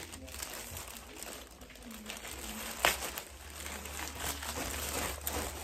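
Plastic packet crinkling and rustling as it is handled and pulled at in a struggle to get it open, with one sharp snap a little under three seconds in.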